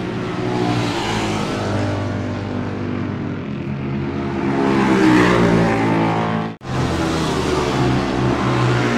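Classic Norton racing motorcycle engine running steadily. It rises in pitch and loudness about five seconds in as the throttle is opened. A momentary gap cuts the sound at about six and a half seconds, and then the engine runs on.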